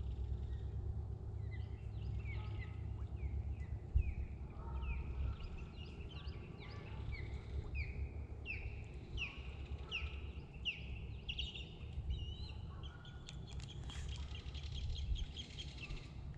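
Osprey giving a long series of short, high, downslurred whistled calls, a little more than one a second. Near the end a belted kingfisher adds a fast, dry rattle. A low steady rumble runs underneath throughout.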